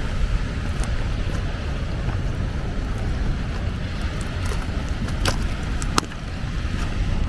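Wind buffeting the microphone, with a steady rushing noise behind it and two sharp clicks about five and six seconds in.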